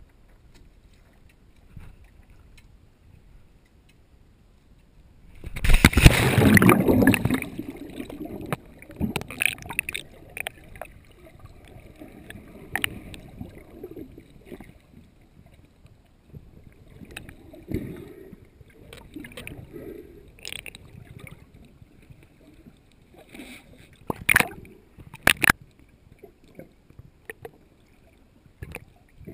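Sea water heard through an action camera's waterproof housing. It is faint at first, then a loud splash comes about six seconds in as the camera goes under the surface. After that there is muffled underwater gurgling and sloshing with scattered knocks, including two sharp ones near the end.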